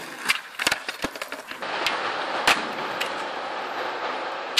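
Skateboard wheels rolling on asphalt, with several sharp clacks of the board striking the ground.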